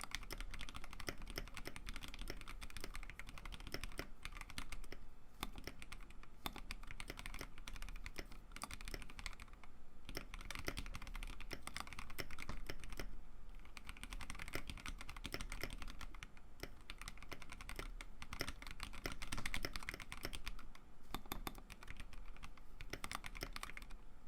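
Continuous typing on a mechanical keyboard in a 3D-printed case, fitted with Akko Neon double-shot PBT keycaps in ASA profile: a dense run of key clacks with a few brief pauses.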